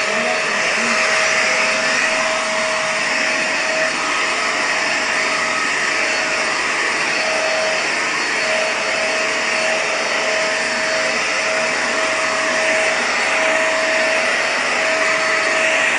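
Vacuum cleaner (hoover) motor running steadily at full speed with a steady whine.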